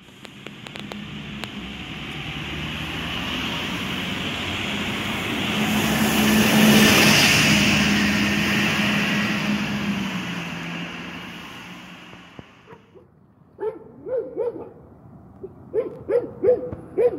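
City bus driving past: engine hum and tyre noise swell to a peak about halfway through, then fade away. In the last few seconds a dog barks in short, repeated bursts.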